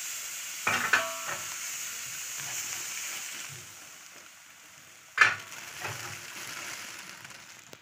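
Hot ghee sizzling in a kadhai as semolina is poured into it, the sizzle dying away about four seconds in as the semolina covers the fat. A sharp, ringing metallic clink about a second in and a louder knock just after five seconds.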